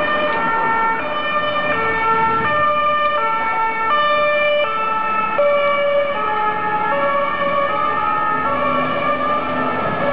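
Swiss ambulance's two-tone siren (Martinshorn) sounding as the ambulance drives by, alternating between a high and a low note about every 0.7 s. The pitch drops a little about halfway through as it passes.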